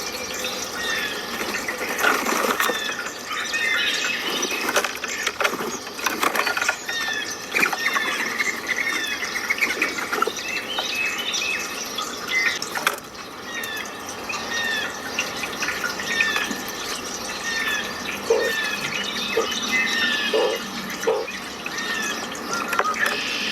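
Running water rushing steadily, with small birds chirping over it in many short, falling notes, and a few lower notes near the end.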